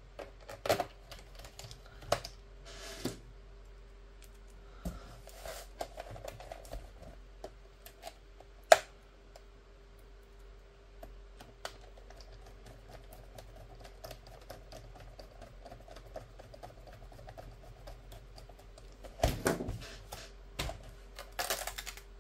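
Small screwdriver turning screws into a laptop's plastic bottom case: scattered clicks and taps of the bit and plastic, one sharp click about nine seconds in, and a cluster of clicks and rattles near the end as the case is pressed by hand. A faint steady hum runs underneath.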